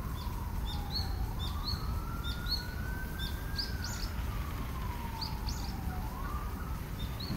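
An emergency-vehicle siren wailing, its pitch sliding slowly up and down in long sweeps of a few seconds each. Small birds chirp in short, high, repeated notes over a steady low outdoor rumble.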